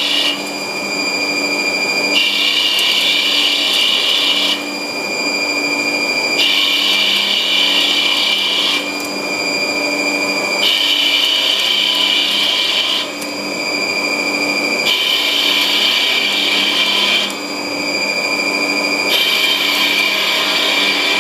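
Haas TL1 CNC lathe turning a part in repeated passes. Under a constant high spindle whine, the harsh noise of the tool cutting and throwing chips starts and stops about every four seconds, lasting about two seconds each time.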